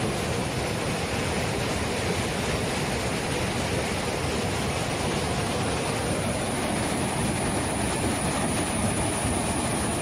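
Steady, even rush of fast-flowing, monsoon-swollen water, with a thin high-pitched tone held steady above it.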